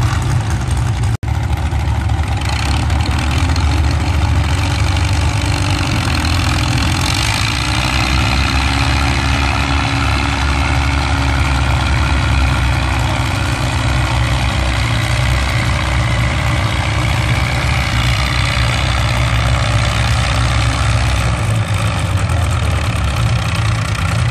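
Antique tractor engine running steadily under load as it pulls a weight-transfer sled down the pulling track.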